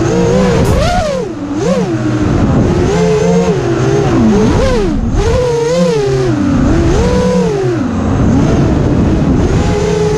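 Six-inch FPV freestyle quadcopter's motors and props whining loudly, the pitch sweeping up and down over and over as the throttle is punched and cut.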